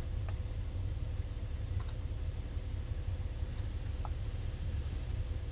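Computer mouse clicking, about four separate clicks spread over a few seconds, over a steady low hum.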